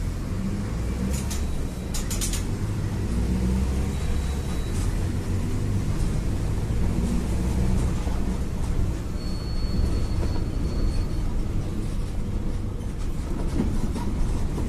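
Diesel engine of a Mercedes-Benz OF-1721 BlueTec 5 city bus running with a deep steady rumble. A few sharp rattles come between one and two and a half seconds in, and a thin high tone sounds for about two seconds past the middle.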